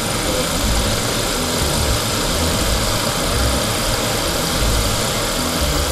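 Steady hiss of a gas torch's blue flame playing on the hot end of a small machined Stirling cycle engine, with the engine running and its flywheel spinning.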